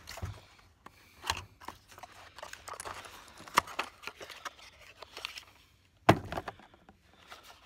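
Handling noise from loading .44 Magnum cartridges into a revolver: a run of small clicks, taps and light rattles of the brass rounds and the revolver's open cylinder, with rustling of the ammo box. One sharper knock comes about six seconds in.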